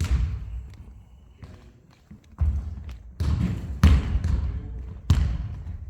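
Basketballs hitting a hardwood gym floor, about five separate heavy bounces with gaps between them, each echoing in the hall.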